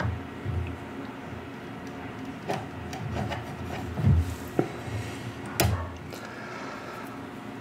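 A hand-held hole locator rubbing and clicking as it is twisted in the engine's mounting-lug holes to mark the motor rails for screws, with scattered knocks and handling thumps; the loudest knocks come about 4 and 5.5 seconds in.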